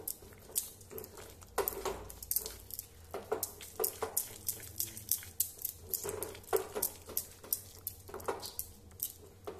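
Silicone spatula stirring and scraping thick, nearly cooked apple halwa around a nonstick pan, in irregular soft scrapes several times a second.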